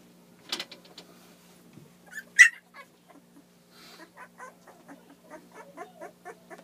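Two-week-old pit bull puppies whimpering and squeaking. One sharp, loud cry comes about two and a half seconds in, then a quick run of short squeaks through the second half.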